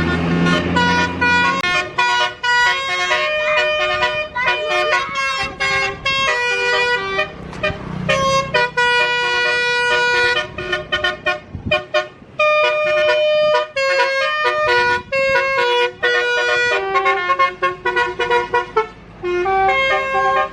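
Telolet bus horn, a set of air horns on a tour bus playing a fast tune of short notes that change pitch, several tones sounding together, with short breaks between phrases. For the first second and a half, before the horns start, the bus's engine is heard running low.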